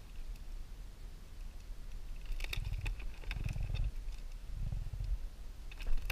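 A freshly landed fish flapping on the plastic deck of a kayak: bouts of low thumps mixed with sharp clicks and rattles, starting about two seconds in and coming in several bursts.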